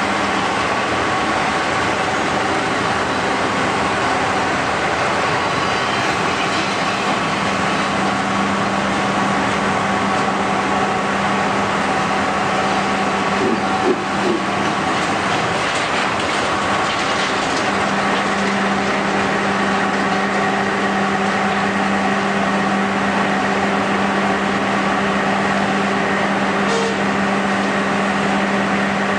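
Steady drone of a working sugar mill's machinery: a constant hum with several held tones. A single knock comes about halfway through.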